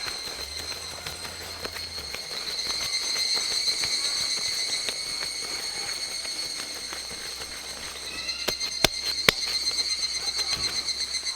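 A steady high-pitched insect chorus, with the scattered crackles and snaps of a burning wood campfire; two louder sharp pops come about nine seconds in.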